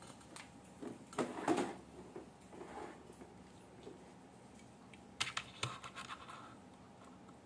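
Two bursts of scratchy handling noise with light clicks. The second comes as a small die-cast toy car is set down and moved on a desk.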